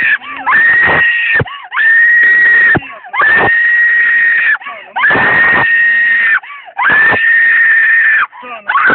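A woman screaming in long, high, steady shrieks, five in a row with short catches of breath between them.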